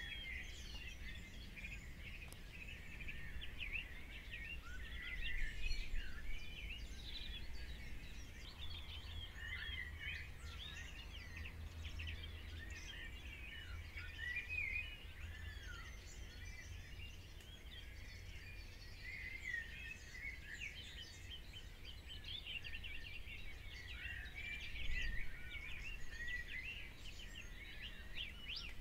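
Birds chirping and twittering, many short calls overlapping without a break, over a steady low rumble.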